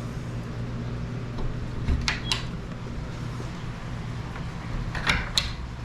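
Steady low mechanical hum, with a few brief clicks and knocks about two seconds in and again near the end.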